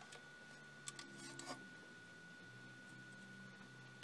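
Near silence: faint room tone with a steady high whine, and a small click about a second in followed by a few fainter ticks.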